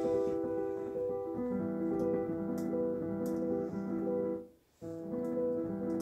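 Piano played with both hands: a repeating figure of held notes in the middle register. The sound cuts out abruptly for a moment about four and a half seconds in, then the playing carries on.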